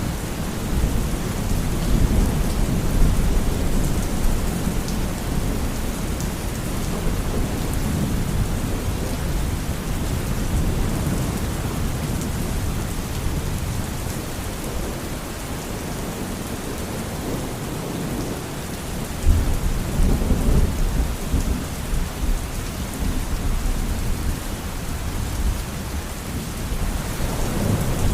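Steady rain falling with thunder rumbling low underneath; a stronger roll of thunder comes in suddenly about two-thirds of the way through.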